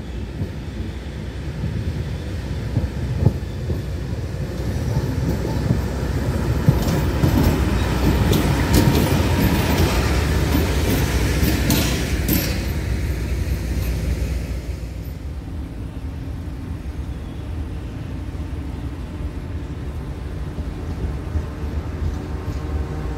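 A ČD Cargo class 753.7 diesel locomotive running light approaches and passes close by. Its engine and wheels swell to a loud rumble with a few sharp wheel clacks, then fade. About fifteen seconds in, a quieter steady rumble takes over: a pair of class 130 electric locomotives hauling coal hopper wagons approaching from a distance.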